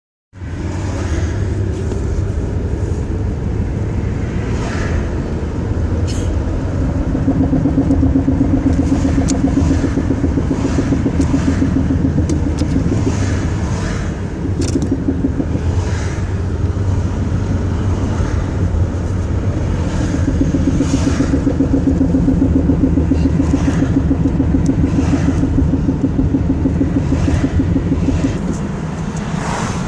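Car driving with steady road and drivetrain rumble heard low in the footwell, with intermittent clunks and knocks from the front driver's side, and a droning hum that comes in twice for several seconds. The noise comes from broken front and rear half-shafts, their boots torn and the grease gone, and a broken control arm.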